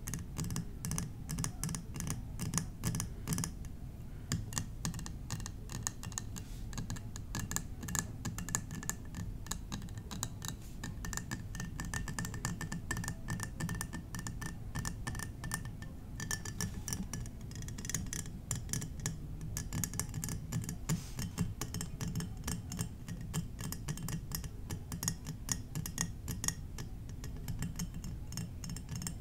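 Rapid, continuous tapping on small glass mini-bar bottles, with a faint steady ringing tone for several seconds in the middle.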